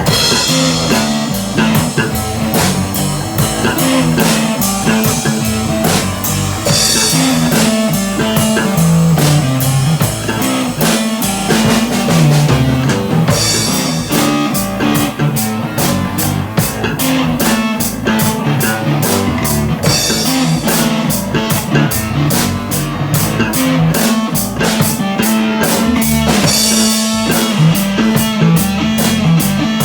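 Rock music: guitar over a steady drum-kit beat, with a cymbal crash about every six or seven seconds.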